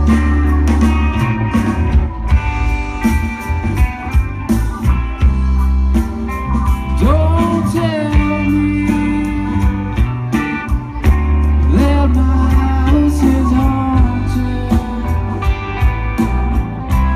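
A live band playing: drums, electric guitars and keyboard over a heavy, steady bass line, with some notes bending in pitch.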